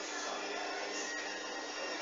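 Hoover washing machine drum turning with a steady motor whir and low hum as it tries to distribute an unbalanced load and fails to reach its spin speed.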